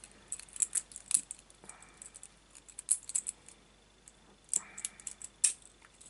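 Small metallic clicks and rattles of a laminated steel padlock being worked in the hands with a thin pick, the tool and shackle knocking against the lock body. Irregular clicks with a short lull about two-thirds of the way through and the sharpest click near the end.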